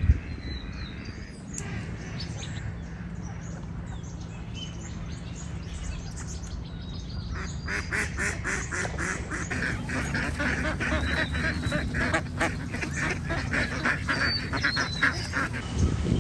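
Waterfowl calling: from about halfway through, a long run of rapid, repeated calls, several a second, over a steady low rumble.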